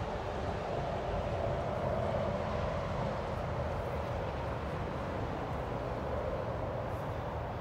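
Steady rumble and rushing noise of a boat's motor running with the boat under way.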